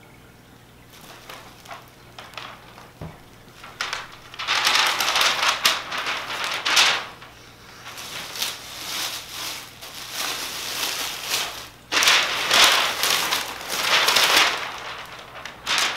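Clear plastic wrap and packing paper crinkling and rustling as a large print panel is pulled out of them, in three long bursts starting about four seconds in.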